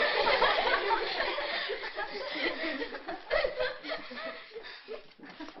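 A group of schoolgirls laughing and chuckling together, loudest at first and dying away over a few seconds.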